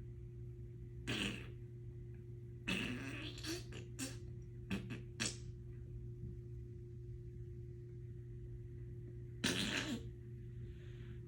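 A person making fart noises with the mouth, blowing raspberries in short bursts: one about a second in, a longer run around three seconds in, a few quick ones near five seconds, and one more near ten seconds. A steady low hum lies underneath.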